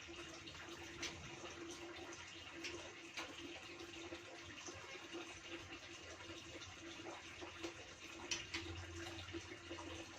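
Faint steady hiss with a low steady hum, broken by a few small clicks.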